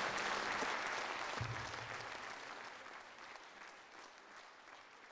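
Concert audience applauding, the clapping fading out steadily.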